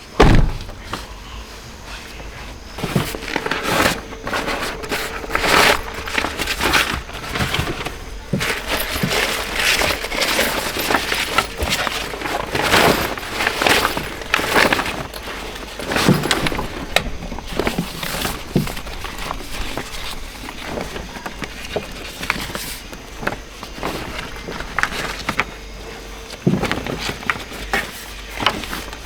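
Camping gear being handled and set up by hand: irregular knocks, clicks and rustling, with a sharp thump just at the start. A faint steady hum runs under it through most of the middle.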